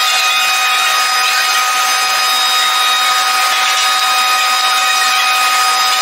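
Metalworking power machine running steadily, a constant high whine over a dense hiss.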